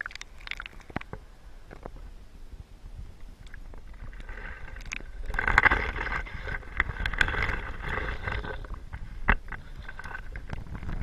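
Water sloshing and crackling around a camera held in a tide pool, with scattered clicks and scrapes of handling noise. It grows louder and denser for a few seconds in the middle, and there is a sharp click near the end.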